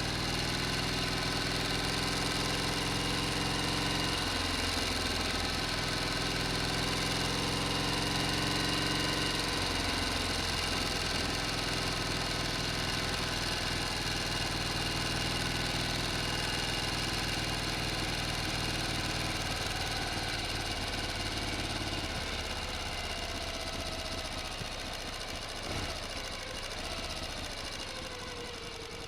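An engine running steadily, its note shifting a few times, then easing off a little and getting slightly quieter near the end.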